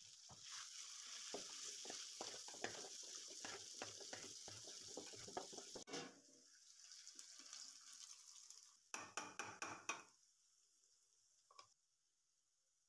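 Chicken and vegetables sizzling in a metal wok, with a spoon scraping and clicking against the pan as they are stirred. The sizzle drops after about six seconds, comes back as a short burst of sizzling and clicks about nine seconds in, then fades away.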